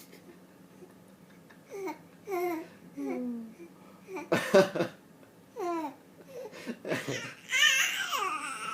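A three-month-old baby babbling and laughing in short squeals that slide down in pitch, growing louder and higher toward the end. A short harsh burst, the loudest sound, comes about four and a half seconds in.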